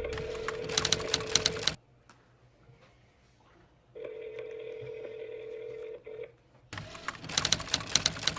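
A steady electronic phone-like tone sounds twice, the second time for about two seconds midway. Two bursts of rapid clicking, like typing on a keyboard, come early and near the end.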